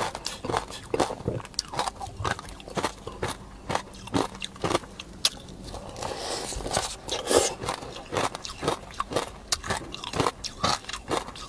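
Close-up crunching of a person biting into and chewing a frozen ice cream cone and ice: irregular sharp crunches, a couple or so every second.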